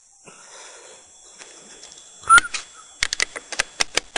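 Plastic battery cover on the underside of an Insignia clock radio being pressed and worked into place by hand: soft rubbing at first, a sharp click about two seconds in, then a run of quick, irregular plastic clicks and taps.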